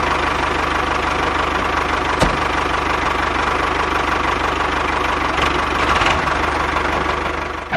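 Tractor engine running steadily with a fast, even chugging pulse. A single click about two seconds in.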